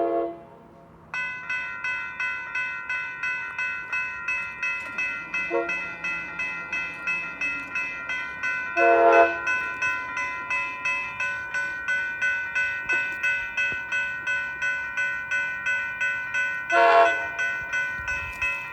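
An Amtrak passenger train's horn blows short blasts as it arrives: one at the very start, a faint one about five seconds in, and louder ones about nine and seventeen seconds in. Under the horn, a railroad bell rings steadily about two to three times a second from about a second in.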